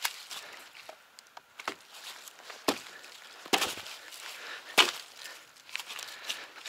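Branches being snapped and broken. There are several sharp cracks about a second apart, with lighter crackles between them, and the loudest cracks come in the middle of the stretch.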